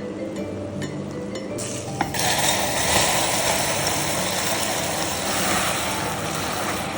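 Soft background music; about two seconds in, after a sharp click, a loud steady hiss comes in over it and cuts off suddenly near the end.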